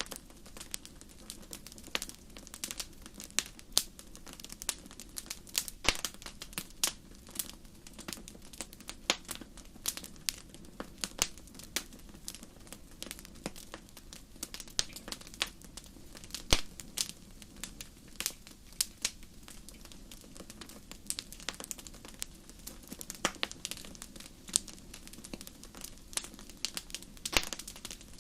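Campfire of burning wood crackling, with irregular sharp pops and snaps over a steady low rush of flames.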